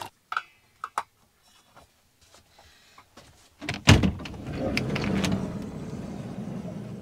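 A few light clicks, then the van's side door unlatching with a loud clunk about four seconds in, followed by a steady rushing rumble that slowly fades as the door is opened.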